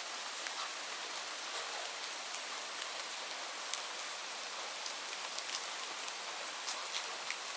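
Steady rainfall pattering on leaves: a constant hiss with many individual drops ticking sharply throughout.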